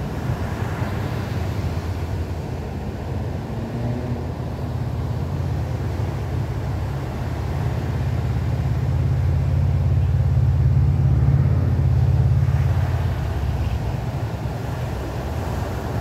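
Low, steady rumble of ocean surf with wind on the microphone, growing louder about eight seconds in and easing off again after about twelve seconds.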